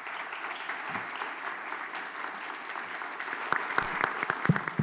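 Audience applauding, with a few louder single claps standing out near the end.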